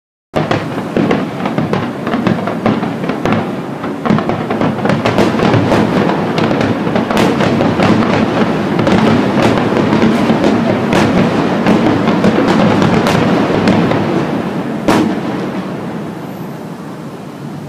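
Aerial fireworks display: a dense barrage of crackling bursts and bangs over a continuous rumble, starting abruptly after a moment of silence. One sharp bang stands out near the end as the barrage thins and grows quieter.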